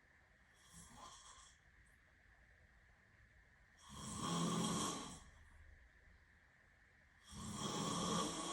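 Snoring in a slow rhythm: a faint snore about half a second in, then two loud snores about three and a half seconds apart, each lasting a little over a second.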